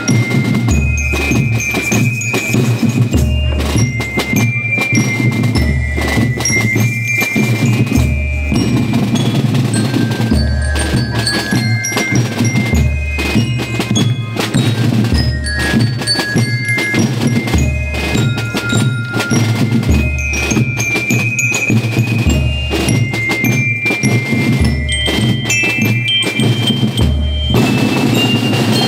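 School marching rhythm band playing: snare drums rattling out a dense beat over a bass drum pulse, with a high ringing bell-like melody on bell lyres above.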